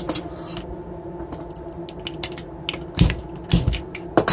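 Small metallic clicks and scrapes of a nut being turned off the shaft of a brushless e-bike motor by hand, with two dull knocks about three seconds in and a sharp metal clack near the end as an adjustable wrench is handled.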